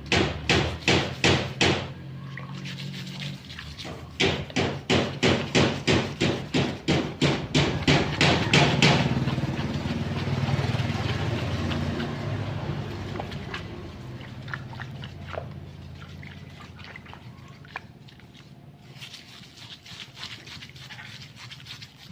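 Hand scrubbing on motorcycle engine parts: quick back-and-forth rubbing strokes, about three a second, in two runs. The strokes then give way to a steady hiss that slowly fades.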